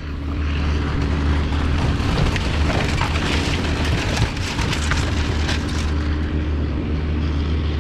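A Caterpillar excavator's diesel engine runs steadily while its hydraulic grapple claw tears into an old fiberglass boat and debris, with dense crackling and crunching of breaking hull material that is thickest in the middle of the stretch.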